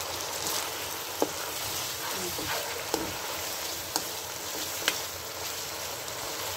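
Diced chicken sizzling in hot oil in a non-stick wok while it is stirred with a plastic spatula. A steady frying hiss runs throughout, with a few sharp clicks as the spatula knocks against the pan.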